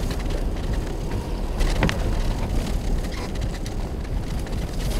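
Nissan Xterra driving slowly over a snow-covered road, heard from inside the cabin: a steady low road and engine rumble with scattered crackles and clicks from the tyres on the snow.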